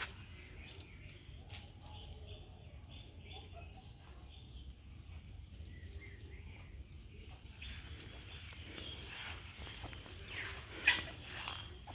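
Farmyard poultry calling in scattered short clucks and cries, with one sharper, louder call about eleven seconds in, over a steady low rumble.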